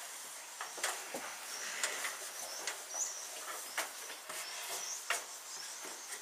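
Scattered clicks and light knocks as a horse float's roof vent hatch is pushed open overhead, with repeated short high chirps throughout.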